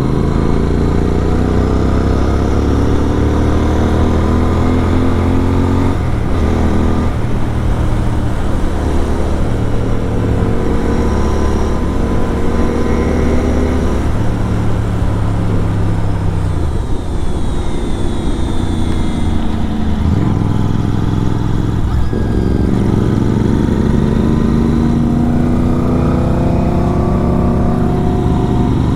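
Superbike engine with a full-system exhaust pulling hard: the note climbs in pitch, drops sharply at a gear change about six seconds in, eases off and falls through the middle, then drops and climbs again through the gears near the end.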